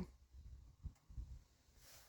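Near silence: room tone, with a couple of faint short knocks a little under a second and just over a second in.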